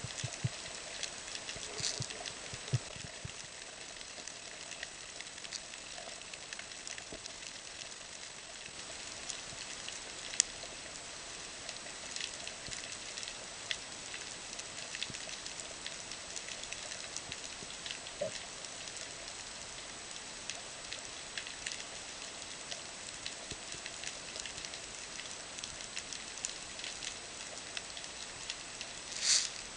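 Underwater reef ambience: a dense, steady crackle of tiny clicks from snapping shrimp, with a few sharper single clicks and a short louder rush near the end.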